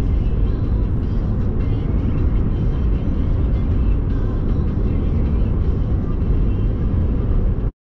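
Car driving at speed: a steady low rumble of road and engine noise that cuts off suddenly near the end.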